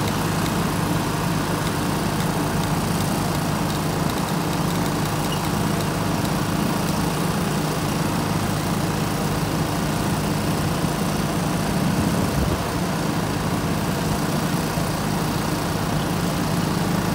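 An engine running steadily at one constant speed, a low hum with no change in pitch throughout.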